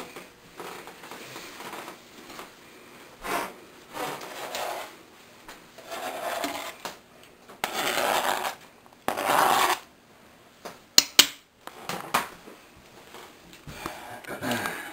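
Chopped green pepper being scraped off a plastic cutting board into a ceramic slow-cooker crock, with short rough scraping and rustling strokes as the pieces slide and drop in. About two-thirds of the way through come two sharp knocks close together, the loudest sounds here.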